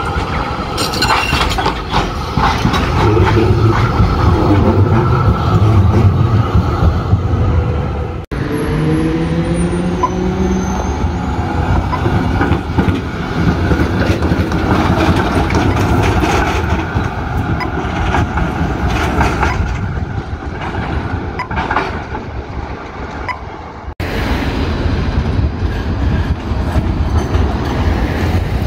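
Melbourne A-class and E-class trams running on street track: steel wheels rumbling and clattering over the rails and points through the junction. There is a brief rising whine about nine seconds in.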